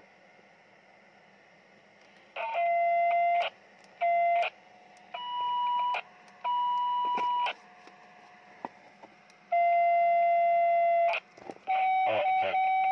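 Radio transmit test: a handheld transceiver and an Icom IC-25H two-metre rig are keyed in turn. Each key-up brings a steady electronic whistle through a radio speaker, six bursts of half a second to a second and a half. Each burst starts and stops abruptly with a click, and the pitch shifts from one burst to the next.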